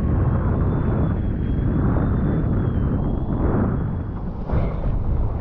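Wind buffeting the microphone over the rush of water while foiling, a dense low rumbling noise that holds steady, with a faint thin high whine running through it.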